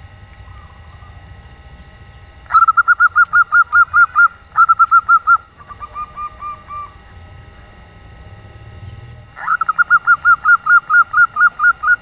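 Female zebra dove (local 'nyelir' type perkutut) calling: rapid runs of short notes, about eight a second. Two loud bouts start about two and a half seconds in, a softer, lower run follows in the middle, and a long run comes near the end. This is the female's call to a male.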